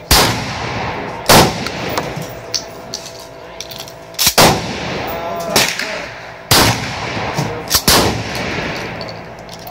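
Remington 870 Wingmaster pump-action shotgun fired several times in succession, each report loud and sharp with a short echoing tail, with smaller sharp clacks between the shots.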